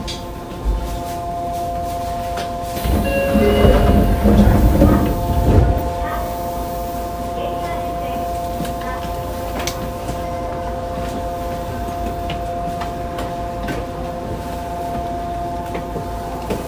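Yokohama Municipal Subway 3000A car standing still, its equipment giving a steady hum of several fixed tones that hold the same pitch throughout. A louder low rumble with clatter comes in about three seconds in and fades near six seconds.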